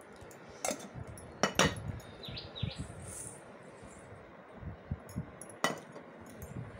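Small stainless-steel vessel clinking and knocking as oil is poured from it onto a stone grinding slab: a few sharp clinks, three in the first two seconds and one more near the end.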